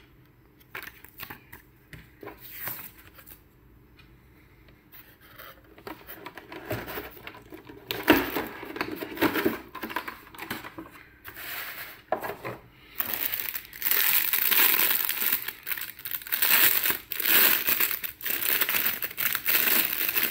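Unboxing handling noises: quiet rustles and small clicks of paper and cardboard, a sharp knock about eight seconds in, then from about thirteen seconds on loud, continuous crinkling of a clear plastic bag being worked off a power adapter.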